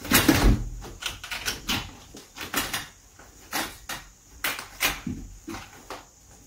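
A metal curtain rod and its rings knocking, rattling and scraping as a cat clambers along it. The knocks come irregularly, about a dozen of them, and the loudest clatter is at the very start.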